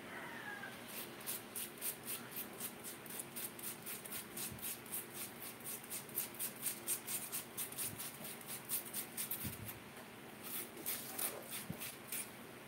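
Raw potato being grated by hand on a metal grater: rhythmic scraping strokes, about four a second, with a brief pause about nine and a half seconds in.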